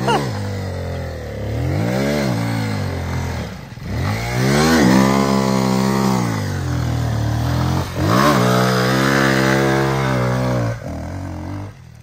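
A 200 cc enduro dirt bike's engine revving up and down again and again as it is ridden through deep mud, with long high-revving stretches, then settling to a lower steady note near the end.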